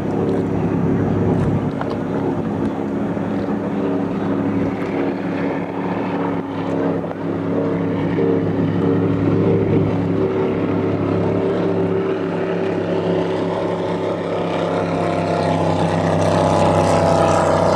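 Powerboat engine running at a steady pace, a little louder near the end.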